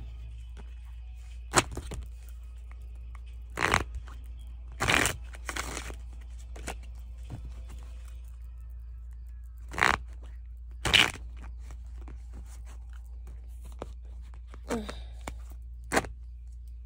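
Oracle and tarot card decks being handled: about eight short, crisp rustles and slaps of cards and card boxes, each under a second long, over a steady low hum.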